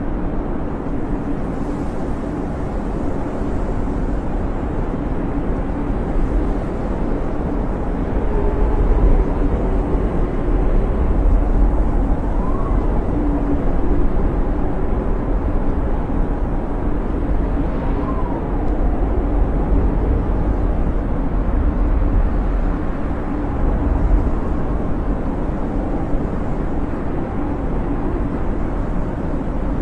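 Blizzard wind blowing hard and steadily with a deep rumble, and a faint whistling howl that rises and falls a few times in the middle.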